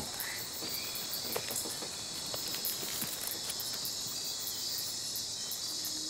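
Night-time jungle insect chorus: a steady, high-pitched shrill of calling insects with rapid ticking calls above it, and a few faint clicks now and then.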